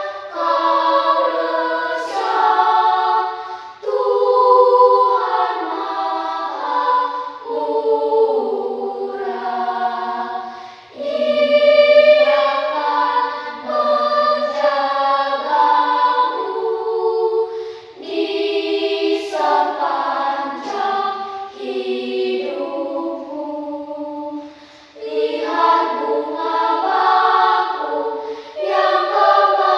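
Choir singing a hymn in several voice parts without instruments, in phrases broken by short pauses about every seven seconds.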